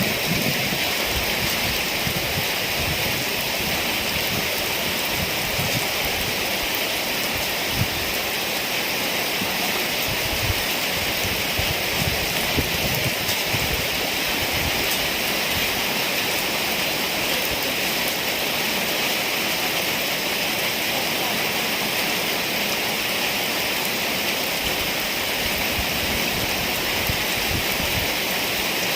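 Heavy rain pouring steadily in a rainstorm, with gusts of strong wind rumbling on the microphone.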